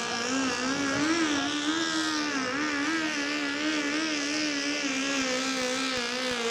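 A garden modified pulling tractor's engine runs at high, steady revs under load as it drags the weight sled. Its pitch wavers slightly around one held note.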